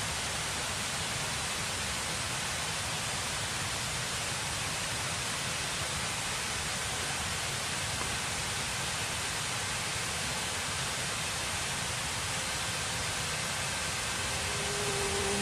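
Steady, even hiss of outdoor ambience, like rushing water or rain, with no distinct events. A faint low hum creeps in near the end.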